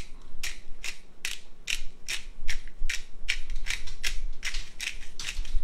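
Hand pepper grinder being twisted back and forth, grinding fresh black peppercorns: an even run of short rasping, ratchet-like strokes, a little over two a second.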